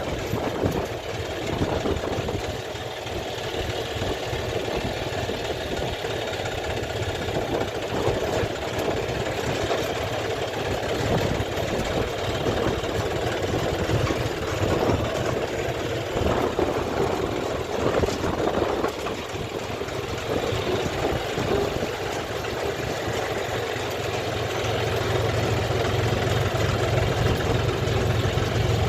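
Diesel engine running steadily, with a deeper rumble that builds toward the end.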